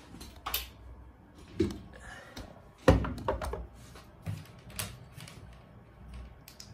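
Handling noise: a series of irregular knocks and thuds as things are moved about on a tabletop, the loudest about three seconds in.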